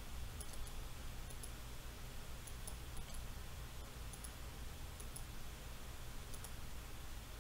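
Faint computer mouse clicks, mostly in quick pairs every second or so, over a low steady hum.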